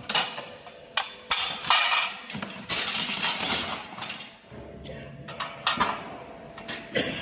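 Metal bracket parts and bolts and nuts clinking and knocking as they are taken out of a cardboard carton, with several sharp knocks and stretches of handling noise between them.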